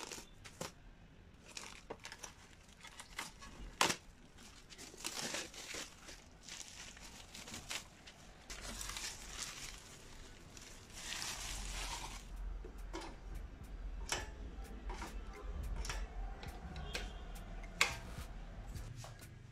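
Plastic stretch wrap crinkling and tearing as it is pulled off a small engine, in several stretches through the first half, followed by scattered light clicks and knocks.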